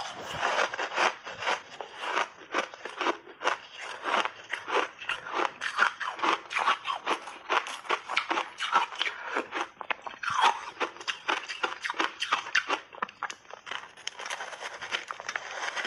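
Large chunks of dyed ice coated in matcha and milk powder being bitten and chewed close to a clip-on microphone: a fast, irregular run of loud crunches and cracks as the ice breaks between the teeth.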